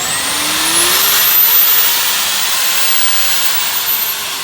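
Handheld electric wood router test-run with no load: the motor spins up with a steeply rising high-pitched whine over a loud rushing noise, then runs at full speed, its whine slowly sinking in pitch in the second half.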